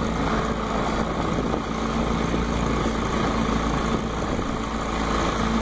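Small boat motor running steadily, a constant engine drone with an even hum.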